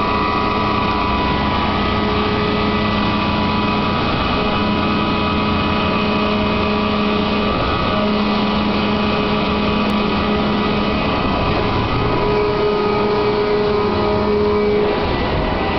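A mechanical pirate ship's drive mechanism running steadily through its operating cycle: a continuous machine noise with a hum of several steady tones. The low hum drops out and returns a few times, and a higher hum comes in over the last few seconds.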